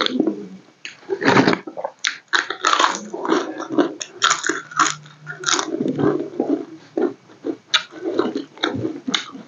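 Close-miked eating sounds: a person chewing and crunching crisp food, with many short irregular crackles, including bites of crisp fried papad.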